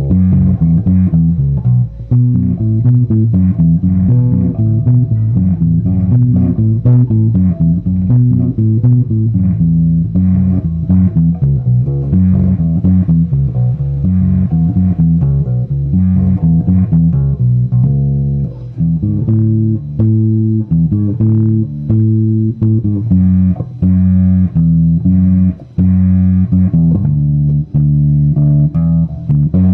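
Electric bass guitar played through an RJ Soundwave bass amplifier: an unbroken run of quick plucked notes, mostly low, with a few higher notes mixed in.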